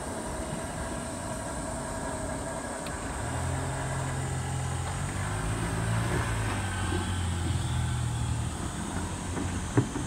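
Keikyu 1500 series commuter train running away along the track. A low steady hum rises about three seconds in and fades near the end, over a steady high drone of cicadas, with a sharp click just before the end.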